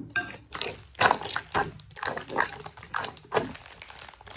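A quick run of light taps and clicks, about two or three a second, from small objects being handled.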